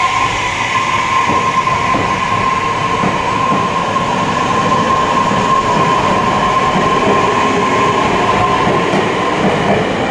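A Tobu Urban Park Line electric commuter train pulling out and accelerating, with wheels running on the rails and a steady high whine from its drive that fades near the end. A good, strong acceleration sound.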